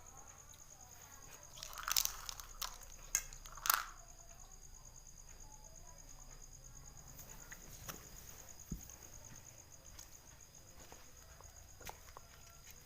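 A crunchy snack being bitten and chewed: a cluster of crisp crunches about two seconds in and a few more up to about four seconds in, then only faint scattered clicks.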